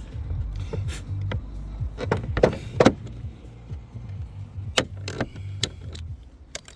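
Scattered clicks and light knocks from rivets and tools being handled on a slate roof, about eight in all, over a steady low rumble.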